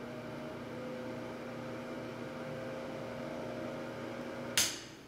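Ceiling-mounted bathroom heater unit running with a steady hum and whoosh. About four and a half seconds in there is a sharp click and the running sound stops.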